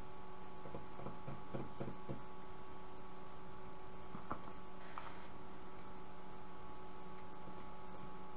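Steady electrical hum, with a couple of faint clicks about halfway through.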